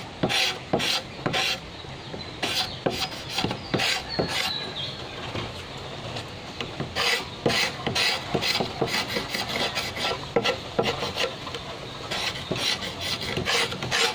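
A steel blade scraping the green outer skin off a fresh bamboo culm in short, repeated strokes, spaced out at first and coming faster from about halfway through.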